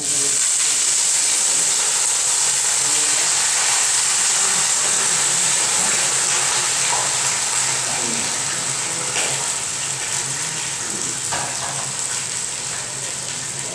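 Sliced red onions sizzling in a hot stainless-steel electric skillet. The loud hiss starts suddenly as they go into the pan and eases off slowly, with a few light clinks of a utensil or lid.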